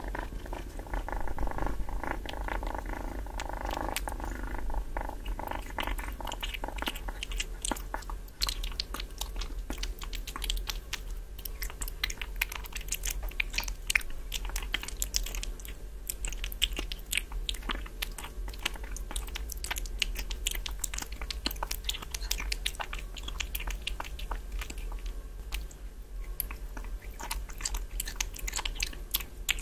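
Kitten chewing and licking raw meat chunks, close-miked: a dense run of wet smacks and sharp teeth clicks, growing busier after the first several seconds. A steady pitched tone sits under it at the start.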